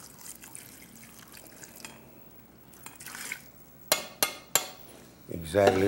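Water poured from a glass measuring cup into a pot of cut cabbage and onions, a faint splashing trickle, followed about four seconds in by three sharp clinks against the pot.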